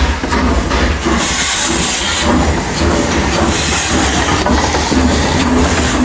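Train running: a loud, steady low rumble with hiss and rail noise.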